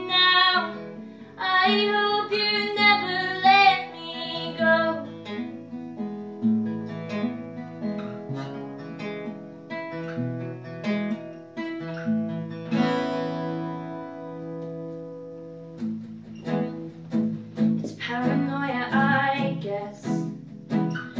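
A woman singing to her own acoustic guitar. The voice carries the first few seconds, then the guitar plays alone with picked notes and a strummed chord left to ring, and the singing returns near the end.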